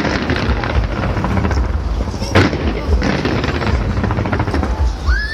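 Fireworks going off: a steady low rumble of booms with rapid crackling pops, and one sharp bang about two and a half seconds in.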